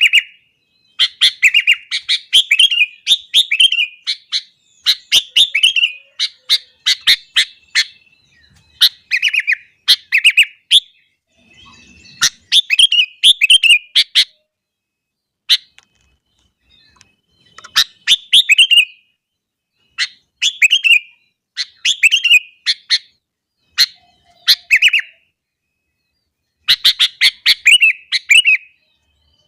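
Sooty-headed bulbul (kutilang) singing in full, vigorous song: short phrases of quick, bright notes repeated every second or two, with a few brief pauses between bouts.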